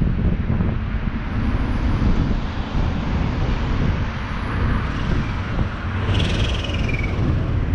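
A car driving along, its engine and road noise running steadily under wind buffeting the microphone. About six seconds in, a short high-pitched tone slides downward.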